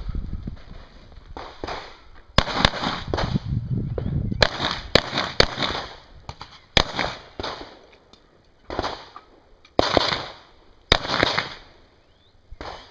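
A string of pistol shots from a Smith & Wesson M&P fired in a defensive-pistol course of fire, about a dozen sharp cracks in quick pairs and singles, each with a short echo off the range.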